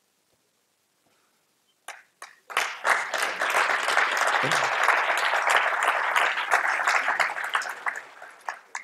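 Audience applause: a second or two of silence, then a few scattered claps that swell into full applause and thin out again to a few last claps near the end.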